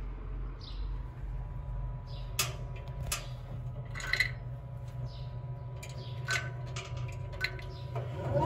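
Traeger Pro Series 575 pellet grill starting up, its fan and auger motor running with a steady low hum. Several light metallic clinks sound against the steel fire pot.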